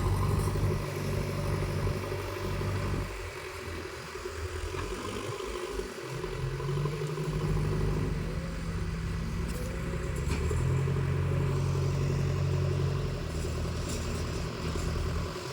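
A heavy machine's diesel engine running, its note dropping away for a few seconds and then coming back up and holding steady.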